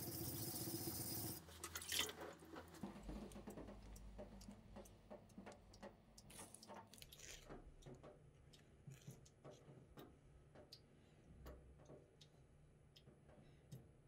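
Sashimi knife blade being rubbed back and forth on a whetstone, a steady grinding rub that stops about a second and a half in. A sharp click follows, then faint scattered clicks and taps as the blade is handled.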